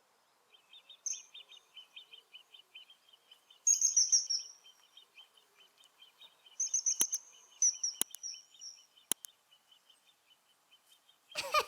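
Kingfisher calling: runs of short, shrill, high-pitched whistles, loudest about four seconds in and again a little past the middle, over a faint, fast, steady chirping. Three sharp clicks come late in the middle, and a brief noisy burst comes right at the end.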